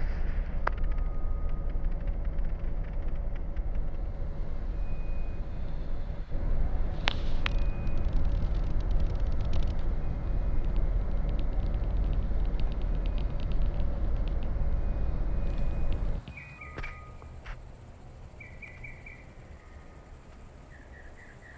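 A steady low rumble with a few sharp clicks and faint thin tones, which drops away suddenly about three quarters of the way through, leaving a quieter background with short, rapid chirps repeated several times.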